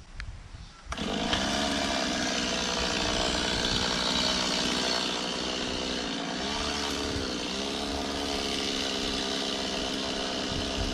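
Two-stroke chainsaw running at speed while cutting into a tree, coming in sharply about a second in after a click; its pitch dips briefly twice near the middle.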